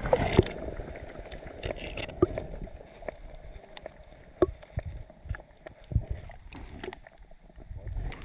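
Muffled sound from a camera held under the river's surface: scattered sharp clicks and knocks over a low rumble.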